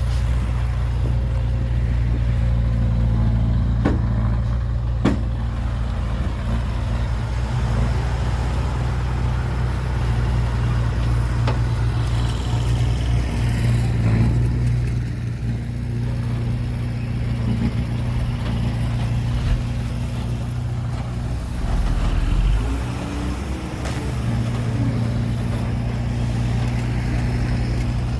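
Diesel engine of heavy earthmoving equipment running steadily, a low drone throughout, with two sharp knocks about four and five seconds in.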